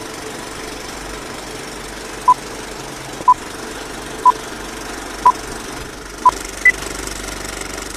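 Film countdown leader sound effect: steady film-projector clatter with five short beeps of the same pitch a second apart, then one higher beep.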